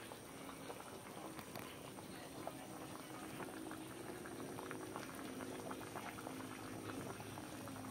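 Patin fish curry simmering in an aluminium pot, bubbling with many small, irregular pops and plops.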